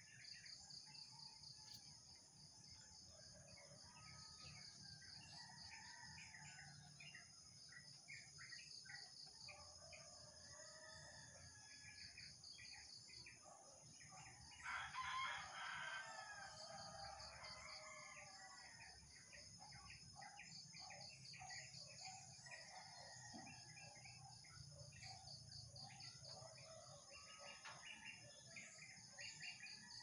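A rooster crowing once, about halfway through, with scattered bird chirps and a steady high insect trill throughout.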